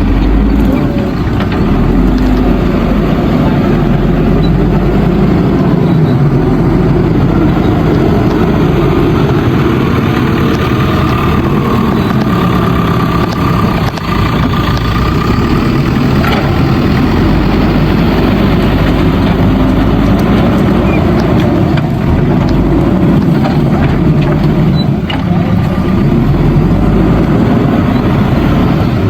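Heavy diesel engine of earthmoving machinery running steadily with a deep rumble.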